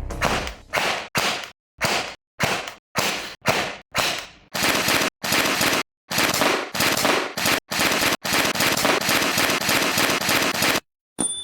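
Automatic gunfire: a quick series of short bursts, then longer full-auto strings from about halfway through, stopping abruptly near the end.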